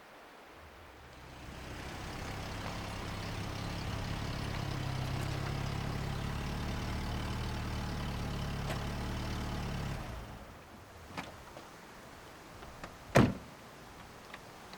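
Car engine running, swelling in over the first couple of seconds and holding steady, then stopping about ten seconds in. A small click follows, then a single loud thump like a car door shutting.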